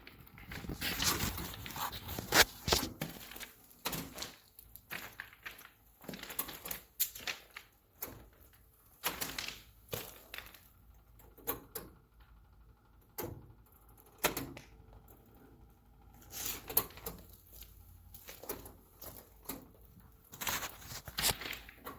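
Irregular knocks, clicks and short rustling scrapes of objects being handled, some close together, in a small room.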